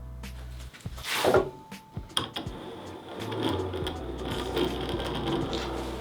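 A hand tool working wood in repeated strokes: one loud stroke about a second in, then a steady run of quick strokes from about two seconds on.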